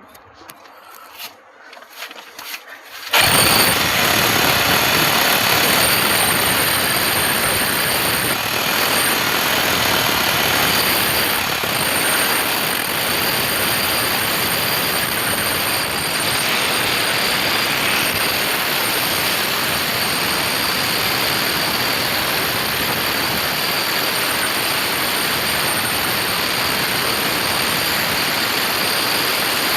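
A few clicks, then a loud, steady machine noise starts suddenly about three seconds in and runs on evenly, with a faint high whine on top.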